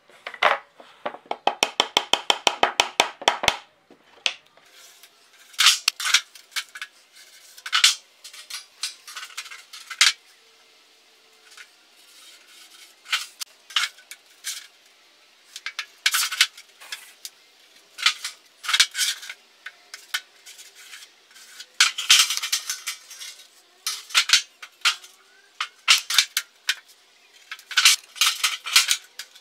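Sharp metallic clinks and clatter as a sheet of galvanized steel and a metal ruler are handled and laid on a metal workbench, with a fast run of rapid clicks in the first few seconds.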